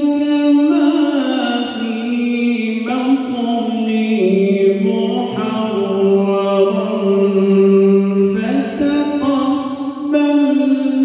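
A man's voice reciting the Qur'an in a melodic, chanted style, drawing out long held notes that glide between pitches. The line sinks to a lower sustained note in the middle and climbs again near the end.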